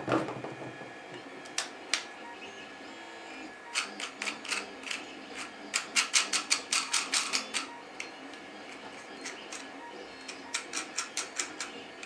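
3D-printed PET-G parts of a syringe dispenser clicking as they are handled and fitted together: two single clicks, then a quick run of sharp plastic clicks lasting several seconds, and another short run near the end.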